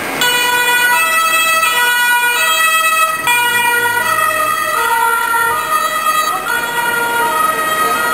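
Emergency vehicle's two-tone siren, cutting in suddenly and alternating between a high and a low pitch a little more than once a second, over city traffic.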